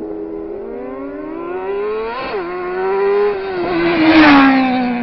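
Motorcycle engine accelerating hard as the bike approaches and passes at speed. The engine note climbs, breaks once about two seconds in like a gear change, is loudest about four seconds in as the bike goes by, then slides down in pitch as it moves away.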